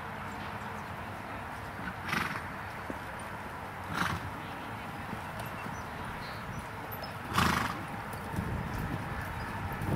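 A ridden horse trotting and cantering on arena sand, its hoofbeats soft. Three short sounds come from the horse about two, four and seven and a half seconds in, the last the loudest.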